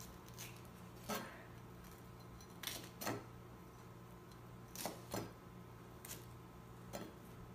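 Kitchen knife slicing green peppers on a plastic cutting board: about six separate cuts, each a sharp tap of the blade against the board, at an uneven pace.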